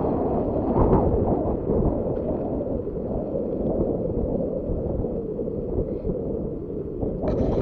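Wind buffeting an action camera's microphone: a steady, dense low rumble, with a brighter hiss joining near the end.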